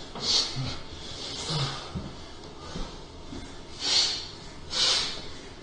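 A person breathing in short, hissy puffs through the nose, about four of them spaced a second or so apart.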